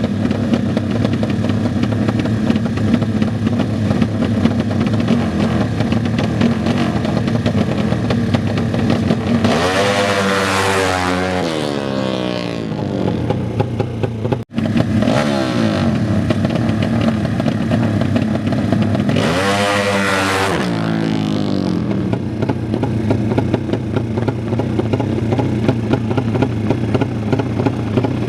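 Motorcycle engines running and revving steadily, with a motorcycle racing past at full throttle about ten seconds in and another about twenty seconds in, each dropping in pitch as it goes by. The sound cuts out for an instant in between.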